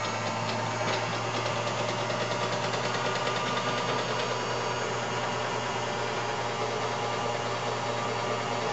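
1940s English Mutoscope crane arcade machine running: a steady motor hum with a fast, fine ticking from its mechanism.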